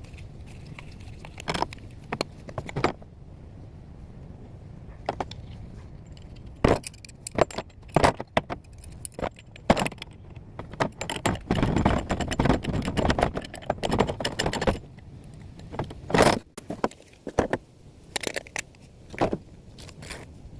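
Metal clinks and knocks of hand work on plumbing parts, with a dense stretch of rattling and scraping about halfway through.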